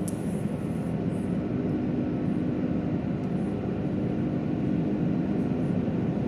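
Steady low drone of an airplane's engines and cabin noise, with a faint steady hum running through it.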